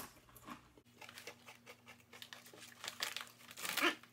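Quiet crackling crunches of a Paqui ghost pepper tortilla chip being chewed, with the foil chip bag crinkling near the end.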